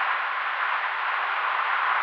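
Steady, even hiss with no rhythm or pitch, typical of helicopter engine and airflow noise picked up in flight, without any audible rotor beat.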